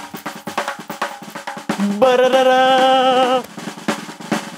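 A rapid snare drum roll, with a voice singing a held fanfare, "ba-da-da-da!", about two seconds in for a second and a half.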